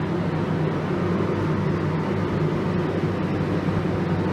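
Paint booth extraction fans running: a steady hum with a rush of moving air.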